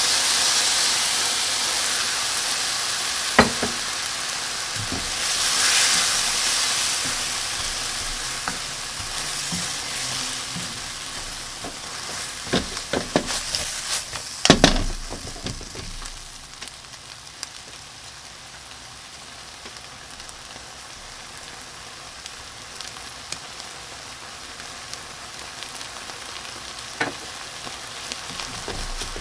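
Sliced onions and canned mackerel sizzling in a hot nonstick frying pan as the seasoning sauce is poured in. The sizzle is loudest at first and dies down to a low hiss about halfway through. A spatula stirs and knocks against the pan now and then, most often just before the sizzle fades.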